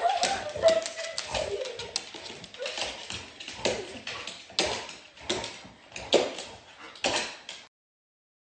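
A large dog's paws and claws clattering and thumping on a hardwood floor as it hops and pounces about, in quick irregular knocks, with a brief whine at the start. The sound stops abruptly near the end.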